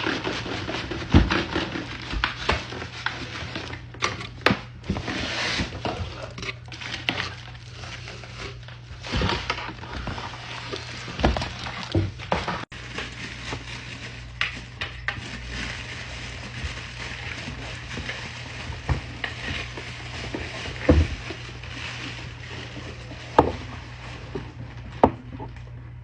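Rustling and scattered knocks and clicks of a new iced coffee maker and its plastic parts and packaging being handled while it is unpacked.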